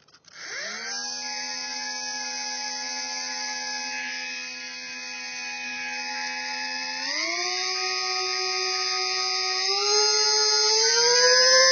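Electric motor and propeller of an RC Icon A5 seaplane model spinning up to a steady whine, then stepping up in pitch about seven seconds in and twice more near the end as the throttle is opened for a hand launch.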